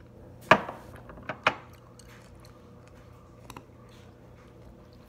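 Close-up eating noises from someone eating noodles with a spoon and chopsticks at a ceramic bowl: a sharp click about half a second in, two smaller clicks about a second later, then a few faint ticks.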